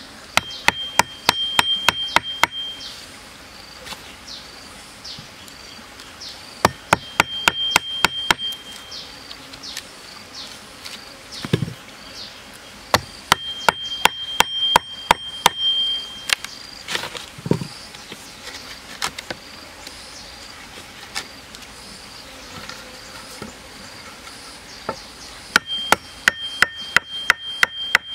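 A metal chisel being struck rapidly into a wooden log, in four bursts of quick, sharp taps about five a second, each burst ringing with a steady high metallic tone.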